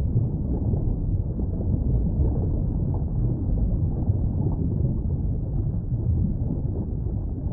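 Underwater ambience: a steady, muffled low rumble and wash with no clear events, all of it deep and dull, with no high sounds.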